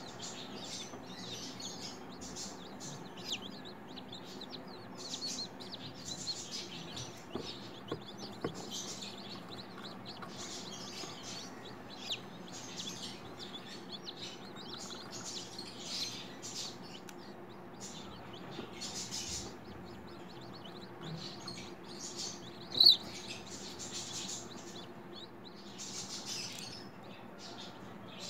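A hatching chicken chick peeping, many short high chirps at an uneven pace, with one much louder peep about three-quarters of the way through, over a steady low hum.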